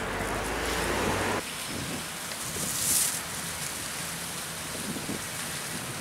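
Wind rumbling on the microphone at the seafront, which stops abruptly about a second and a half in. It gives way to a steady even hiss of outdoor water-side ambience, with a brief high rush about three seconds in.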